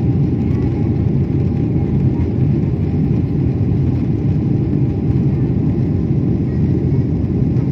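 Jet airliner cabin noise: the steady, even rumble of engines and airflow heard from a window seat inside the passenger cabin during flight.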